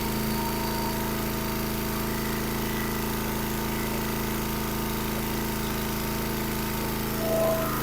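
Log splitter's 306cc Briggs & Stratton engine running steadily at an even, low speed, a little louder for a moment near the end.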